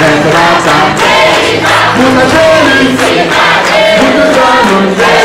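A crowd of party guests singing a birthday song together in chorus, with clapping, over steady low musical notes.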